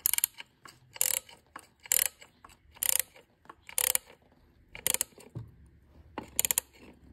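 Small ratchet wrench clicking as a socket is turned to run a bolt down: a short run of rapid pawl clicks about once a second, seven strokes, with a longer pause before the last.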